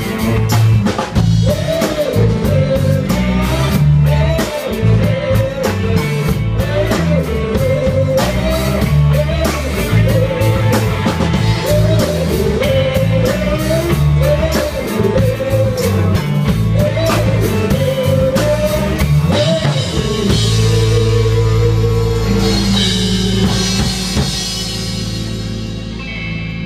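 Live rock band with electric guitars, bass guitar and a drum kit playing a song. About three-quarters of the way through the drums stop and the band holds a final chord that rings on and slowly fades, ending the song.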